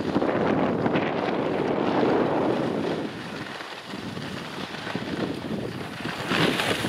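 Wind rushing over the microphone of a camera carried by a skier moving downhill, mixed with skis hissing and scraping over packed snow. It eases about three to four seconds in, then picks up again, with a brighter hiss near the end.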